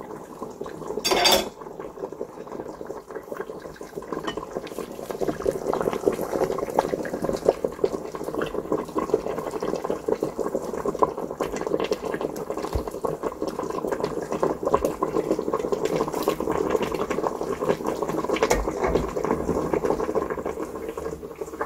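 Pork kimchi stew bubbling at a simmer: a steady crackle of small popping bubbles. A short, sharp clatter comes about a second in.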